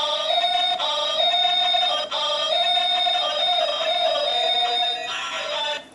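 Musical LED spinning top playing its built-in electronic tune: a shrill, tinny beeping melody that cuts off abruptly near the end.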